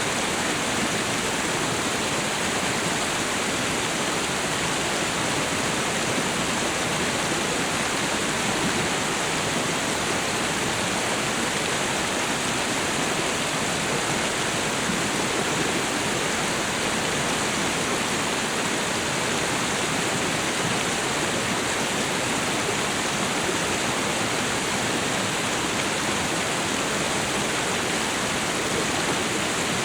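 Waterfall and river water rushing in a steady, unbroken roar of white noise.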